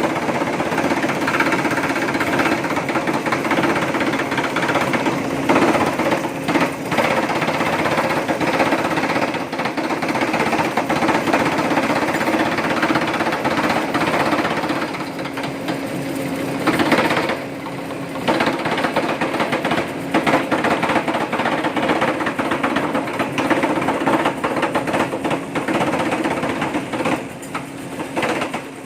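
Tyre strip-cutting machine running, its 5000-watt electric motor and WPA 120 worm gearbox giving a steady hum under a rapid, continuous clatter. The sound dips briefly a little past the middle.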